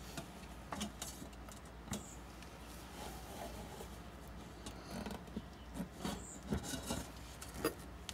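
Soft handling sounds as a bowl of rice is gripped through a tea towel and worked out of an Instant Pot: the cloth rubbing, with scattered light clicks and knocks of the bowl against the pot, more of them in the second half.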